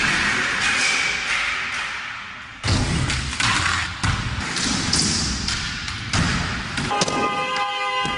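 Skateboard wheels rolling over indoor wooden ramps, with the thuds of a skater's fall and several sharp board impacts and landings on the ramp surface. Near the end a held tone of several pitches comes in.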